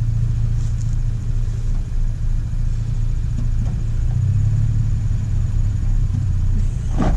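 A vehicle engine running steadily at low revs, a low tone that shifts slightly lower about four seconds in.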